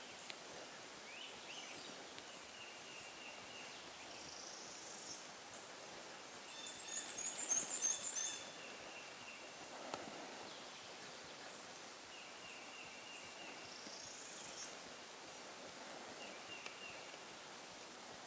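Small songbirds singing in woodland: short high songs come and go, with the loudest, chattering song about seven to eight seconds in.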